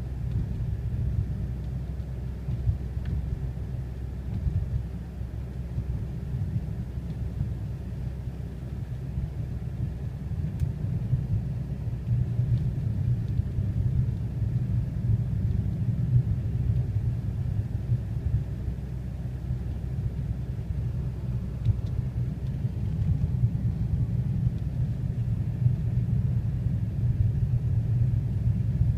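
Steady low rumble of a car driving along a snow-covered road: engine and tyre noise heard from inside the cabin.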